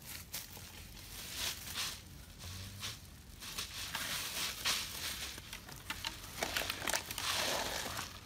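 Crinkling and rustling of something being handled, in several stretches, with scattered small clicks and knocks.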